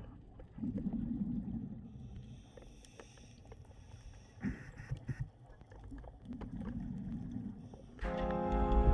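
Muffled underwater sound during a scuba dive: two low swells of a diver's exhaled regulator bubbles a few seconds apart, with a few scattered clicks. Background music starts near the end.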